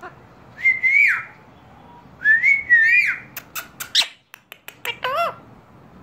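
Rose-ringed parakeet (Indian ringneck) whistling: a short rising-and-falling whistle, then two linked whistle notes, followed by a run of sharp clicks and a brief harsh call near the end.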